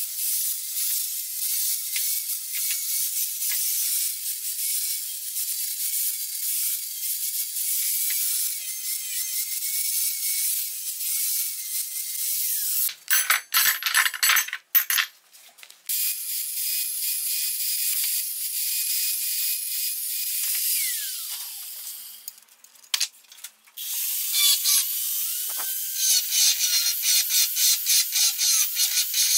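Straight die grinder with a small abrasive wheel spinning at high speed against steel parts, a high wavering whine over a hissy grinding noise. Two short breaks interrupt it, and near the end it pulses quickly as the tool works the metal.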